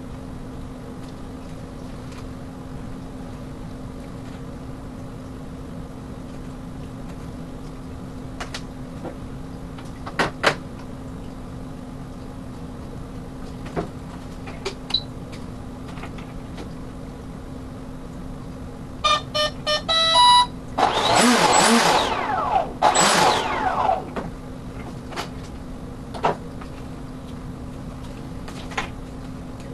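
Steady low hum with a few light clicks and knocks, then, about two-thirds through, a quick run of electronic startup beeps from the electric jet's speed controller. These are followed by about three seconds of loud motor whirring that falls in pitch.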